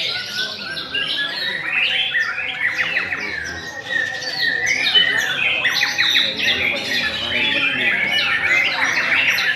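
Several white-rumped shamas (murai batu) singing at once in a contest. A dense, unbroken chorus of rapid whistles, sweeps and harsh chattering phrases overlaps.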